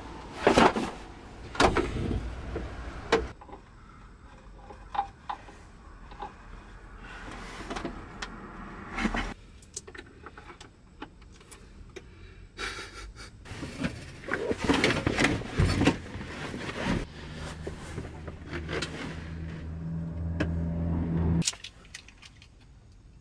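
Knocks, clatter and rustling of objects being handled inside a van. Near the end, a steady low hum runs for about four seconds and cuts off suddenly.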